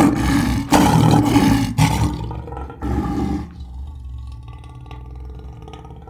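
Lion roaring: four loud, rough calls one after another over the first three and a half seconds, then trailing off quieter.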